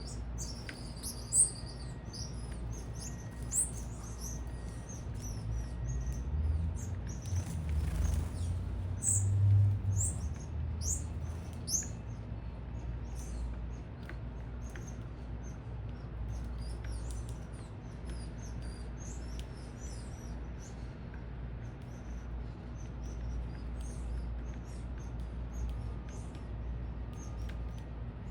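Small birds at a feeder chirping in short, rapid high notes throughout, over a steady low rumble that swells for a few seconds near the middle. Two sharp clicks come in the first few seconds.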